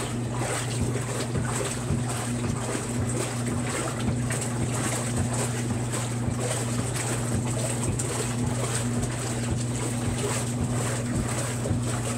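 Maytag wringer washer running: a steady motor and gear-drive hum as its wringer rollers pull a wet towel through, with faint regular clicks over the hum.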